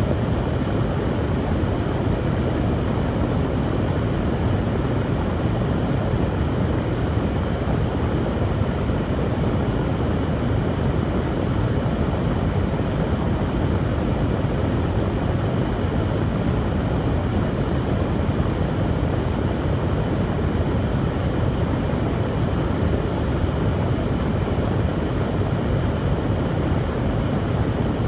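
Hair dryer running steadily, a constant rush of blown air and motor noise with no change in speed.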